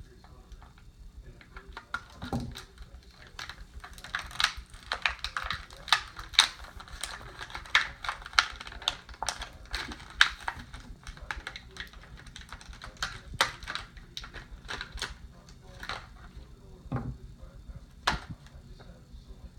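Small hard plastic toy robot pieces being handled, clicking and snapping together in a quick irregular patter, with a few louder knocks near the end.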